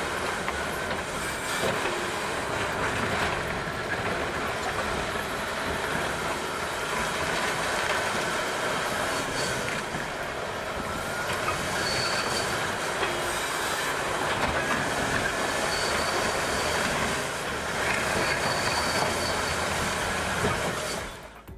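Komatsu D375A8 crawler bulldozer working: steel tracks clanking steadily over the engine's running, with a few brief high squeals from the undercarriage.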